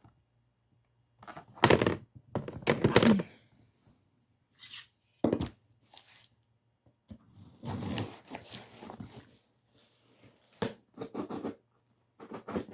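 Cardboard box being opened by hand: packing tape tearing and packaging rustling in irregular bursts, loudest in the first few seconds, with short pauses between.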